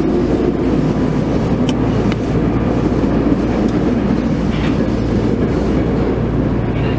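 Tokyo Metro Ginza Line 01 series subway train running through the tunnel, heard from inside the car: a steady rumble of wheels and running gear with a few sharp clicks.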